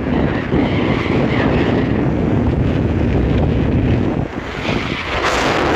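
Heavy wind buffeting the microphone over the steady rumble of a moving vehicle.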